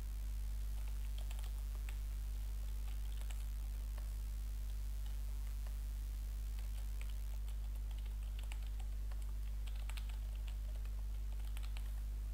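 Computer keyboard typing in irregular runs of keystrokes, over a steady low hum.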